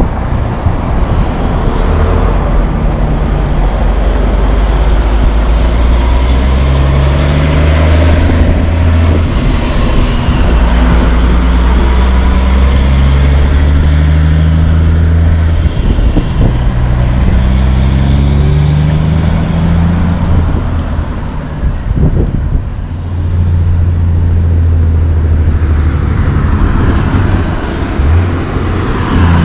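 Diesel big-rig tractor engines pulling loaded curtain-side trailers past, the engine note climbing in steps as the trucks shift up through the gears, over general road traffic.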